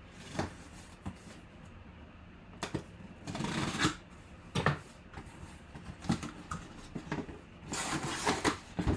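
Cardboard box and plastic packaging being handled and opened by hand: a scatter of sharp taps and clicks, with a stretch of rustling about three seconds in and another near the end.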